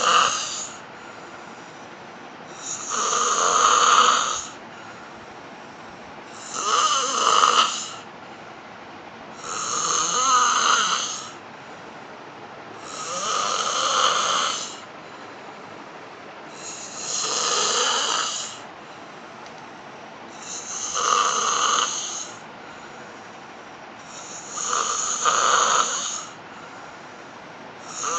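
A sleeping woman snoring in a steady rhythm: a loud snore about every three and a half seconds, each lasting around a second and a half, with quiet breathing between.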